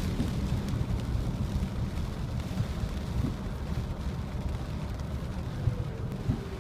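Steady road noise inside a moving car's cabin: a low rumble of tyres and engine with a hiss above it.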